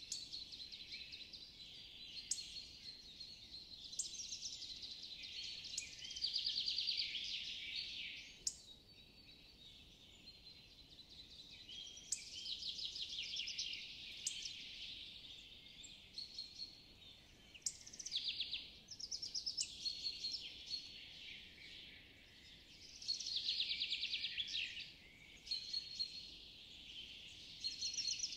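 Woodland birds singing: fast, high trills lasting a second or two recur every few seconds over a steady high chirping, with a few short sharp chips between them.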